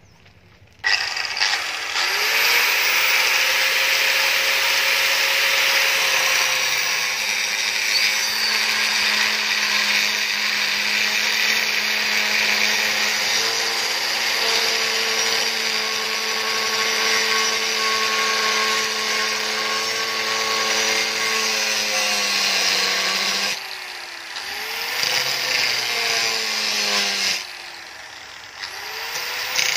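Electric angle grinder with an abrasive cut-off disc spinning up about a second in and cutting into a rusty steel bar with a harsh, steady whine. Near the end the motor drops away twice and spins back up.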